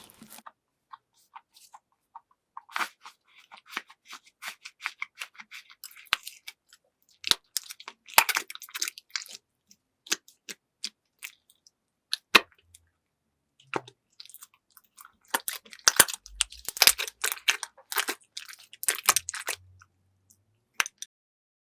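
Crunchy slime crackling and crunching as it is worked, in irregular clusters of crisp pops with short silent gaps, busiest in the last third.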